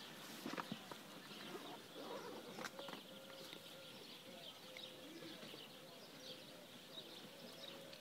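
Quiet outdoor ambience: faint, scattered small-bird chirps over a faint steady hum, with a few soft clicks.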